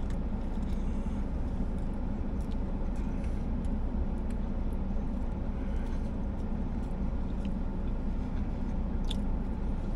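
Steady low hum of a running car heard inside its cabin while parked, with a few faint chewing clicks.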